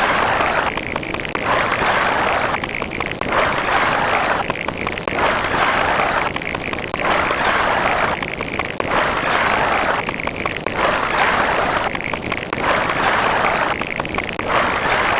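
Loud, rushing noise with no clear tone, swelling and dipping about every two seconds like a looped sound effect.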